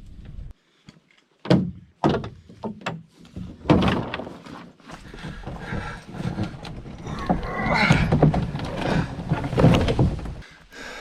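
Footsteps and the knocks and rustle of canoe and gear being carried along a forest portage trail. Several sharp knocks come in the first few seconds, then a busier stretch of scuffing and clatter.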